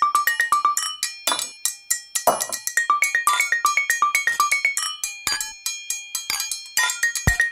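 Background music: an upbeat track of short, bright, pitched notes at about four a second over light percussion, with a deep bass hit near the end.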